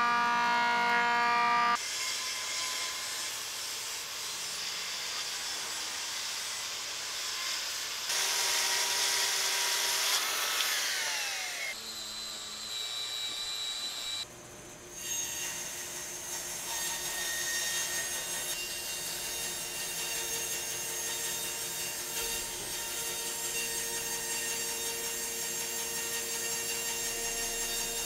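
Woodworking machines cutting and surfacing teak planks in a run of short clips. A thickness planer whines at the start and stops abruptly about two seconds in. Saw-cutting noise follows, with a falling whine as a machine spins down about ten seconds in, and a bandsaw cuts steadily in the second half.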